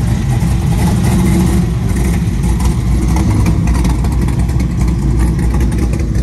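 Engine and exhaust of a classic first-generation Chevrolet Camaro running at low revs, a steady low rumble as the car rolls slowly past.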